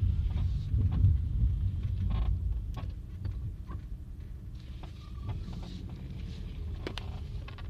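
Chevrolet Lacetti on the move: a steady low rumble with scattered short clicks and a few brief squeaks, the squeak the owner locates at the front left of the car. The rumble eases off about three seconds in.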